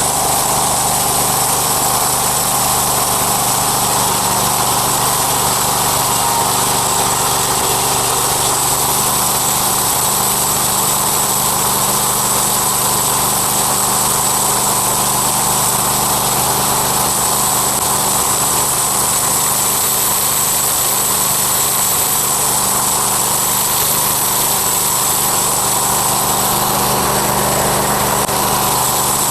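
Small gasoline engine of a homemade sawmill running steadily at a constant speed.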